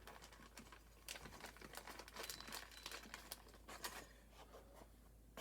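Faint crinkly scraping and small clicks of a plastic wire cap being twisted onto stripped wire ends, busiest through the middle and easing off near the end.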